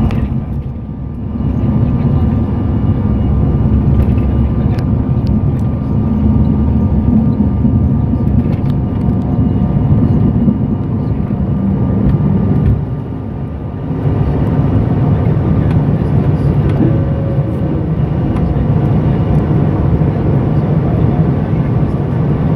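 Bombardier CRJ700's rear-mounted GE CF34 turbofan engines at takeoff thrust, heard from the passenger cabin during the takeoff roll and lift-off: a loud, steady low rumble with thin steady whining tones over it. The noise dips briefly twice, once near the start and once about halfway.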